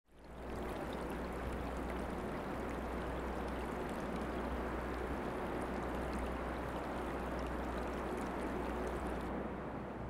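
Steady rushing outdoor ambience with a low rumble beneath, fading in over the first half second; its hiss drops away near the end.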